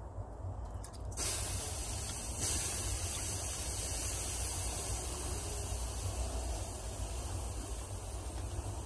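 Steam hissing off the hot tent stove. It starts suddenly about a second in, grows louder about a second later, then holds steady.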